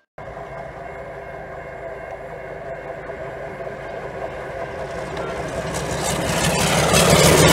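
Diesel-electric locomotive running light engine as it approaches, its engine drone growing steadily louder over the last few seconds, heard from inside a car.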